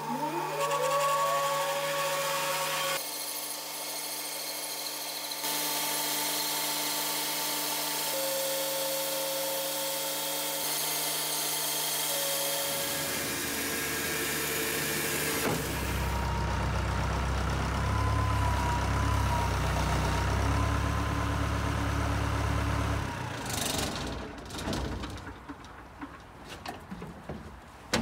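Mebor band sawmill running, its blade cutting through an English oak log, in several stretches that change suddenly in tone. About 23 seconds in, the running stops, and a few irregular knocks and clatters follow.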